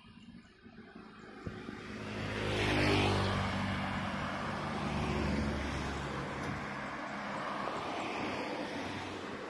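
Road traffic passing close by: a motor vehicle passes about three seconds in, its engine note rising and then falling away, followed by a steady run of traffic noise.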